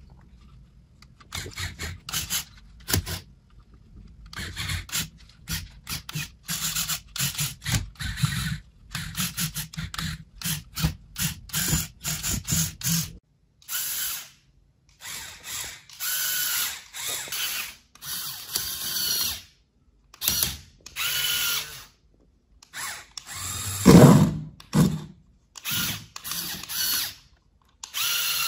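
Electric motors and plastic gearing of a motorised Lego Technic climbing car whirring in many short stop-start bursts. One louder low knock comes near the end.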